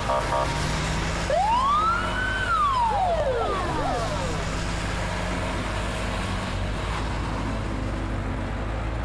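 Emergency-vehicle siren giving a single wail that rises and falls over about two and a half seconds, starting about a second in, over a steady low hum.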